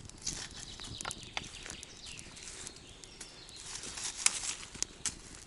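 Small campfire of dry leaves and twigs crackling, with irregular sharp snaps and light rustling.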